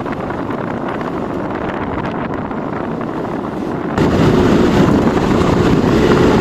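Wind buffeting the microphone over the running of a vehicle on the move. The noise jumps sharply louder about four seconds in.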